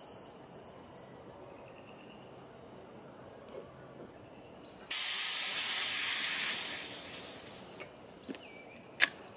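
High-pressure air filling the Air Venturi Avenger PCP rifle's air reservoir, heard as a thin whistle that rises slowly in pitch and stops about three and a half seconds in. About five seconds in, a loud hiss of escaping air starts and fades over about three seconds, and a sharp click comes near the end.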